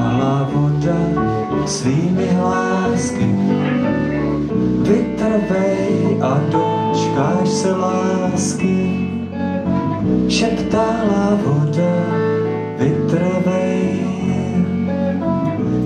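Live rock band playing: electric guitars, bass guitar and a drum kit with repeated cymbal crashes, and a man singing.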